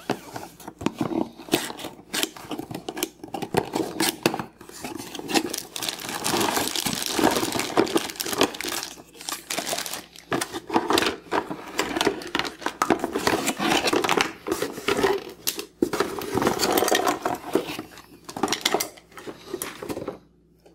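A cardboard toy box being opened and unpacked by hand: packaging rustling and crinkling, with hard plastic toy parts and Play-Doh tubs clattering and knocking as they are pulled out and set down.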